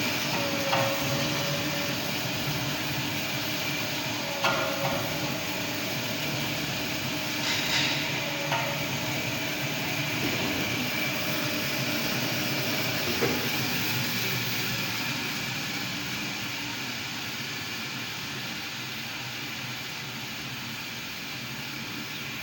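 Automatic towel-cutting machine running with a steady mechanical hum, broken by about five sharp clacks, several with a brief ringing tone after them. The running noise grows gradually quieter over the last third.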